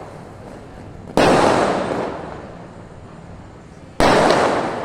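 Two loud firework bangs, about three seconds apart, each followed by a fading rumble lasting a couple of seconds: aerial firecrackers bursting in the sky.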